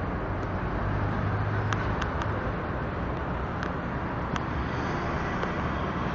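Steady outdoor city ambience: an even wash of traffic noise, with a low hum in the first couple of seconds and a few faint clicks.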